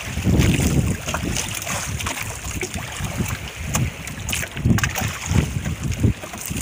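Wind buffeting the microphone in uneven gusts, over sea water lapping, with a few light clicks.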